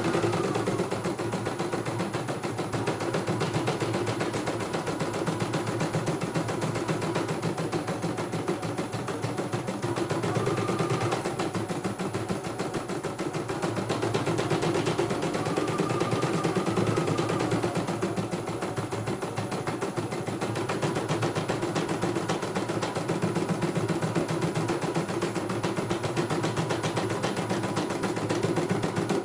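CNY E900 computerised embroidery machine stitching a design: a fast, steady run of needle strokes as the hoop carriage shifts the fabric. It stops abruptly at the end.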